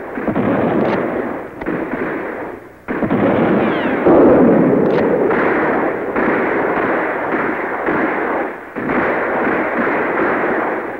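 Battle din of massed musket fire and cannon fire, continuous and dense. It briefly drops away about three seconds in and again near nine seconds in.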